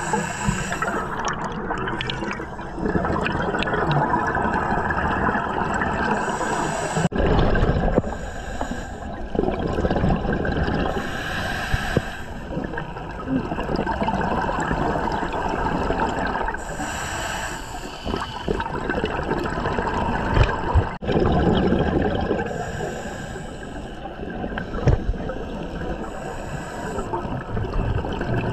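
Scuba diver's breathing through a regulator, heard underwater: a continuous bubbling rush, with bursts of exhaust bubbles every few seconds.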